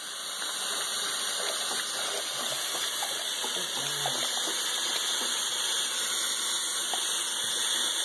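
Bathroom faucet running steadily into a sink while a dog laps at the stream, faint irregular wet licks and splashes over the hiss of the water.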